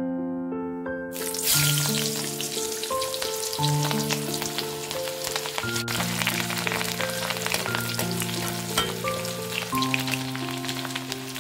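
Sliced onion and green chilli frying in hot oil in a steel wok, a steady crackling sizzle that starts about a second in, stirred with a ladle.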